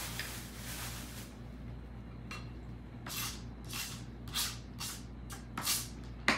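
A plastic bag rustling for about the first second, then a knife cutting cucumber spears on a cutting board: a series of short crisp strokes about every half second, with a sharp knock of the blade on the board near the end.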